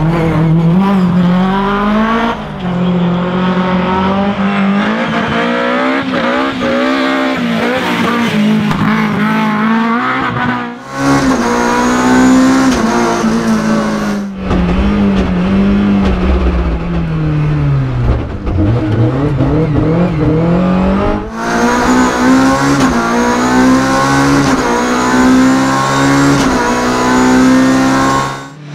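BMW M3 E30 rally car's S14 four-cylinder engine at high revs, pitch climbing and dropping through gear changes, heard in turns from inside the cabin and from the roadside. About two-thirds in, the revs fall away steeply under braking and then climb again.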